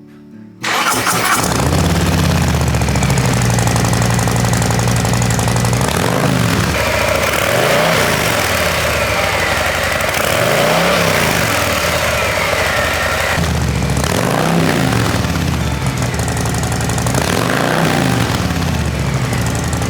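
Harley-Davidson Low Rider S's 117 cubic-inch Milwaukee-Eight V-twin breathing through freshly fitted Cobra slide-on mufflers: it starts up just under a second in, idles steadily, then is revved in about five throttle blips. Really loud.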